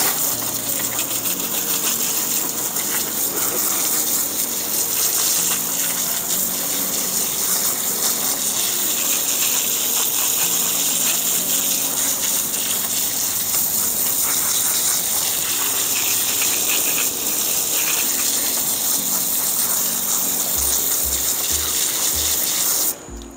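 Garden hose spraying water onto a whole raw suckling pig to rinse the carcass: a loud, steady hiss and splatter of water on the meat and paper, which cuts off suddenly just before the end.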